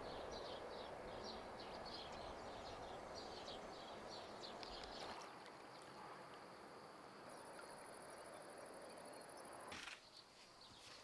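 Faint rural outdoor evening ambience. Short high chirps repeat steadily through the first half, and a very high, fast-pulsing trill runs for about two seconds later on.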